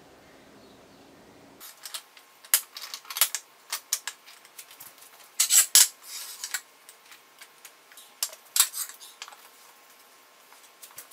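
Drinking glasses and a ceramic serving plate clinking and knocking as they are set down and arranged on a countertop and wooden board: irregular clusters of sharp clacks, the loudest about halfway through.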